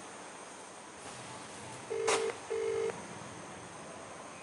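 Mobile phone call's ringback tone: one double ring, two short low steady beeps about two seconds in, with a click during the first beep. It means the called phone is ringing and has not yet been answered.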